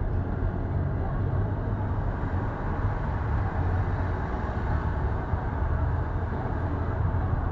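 Steady engine and road noise of a car driving in city traffic, heard from inside the car, mostly low-pitched.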